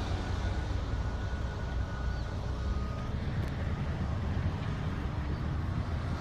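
Komatsu bulldozer's diesel engine running with a steady low rumble.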